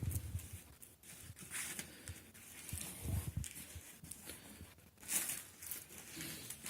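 Irregular rustling and scraping from knee guards and their packaging being handled, in uneven bursts with a stronger one about five seconds in.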